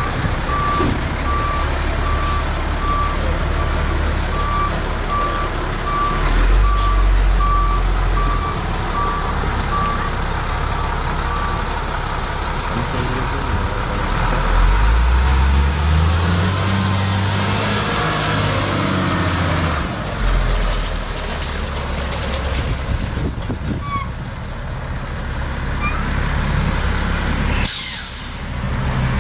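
Caterpillar C7 turbo-diesel engine of a Freightliner M2 truck running, with a reverse alarm beeping at an even pace for the first dozen seconds. Around the middle the engine's pitch climbs in steps as the truck pulls away, and near the end comes a short sharp hiss of air from the air brakes.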